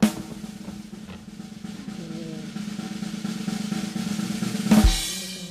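Drum roll sound effect that swells steadily louder and ends in a single crash hit near the end, then fades. It is the kind of build-up used for a reveal.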